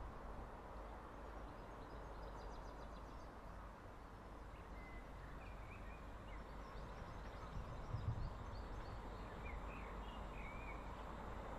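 Small birds chirping over a low, steady outdoor rumble, with the approaching Lumo Class 803 electric train slowly growing louder toward the end. A brief low thump comes about eight seconds in.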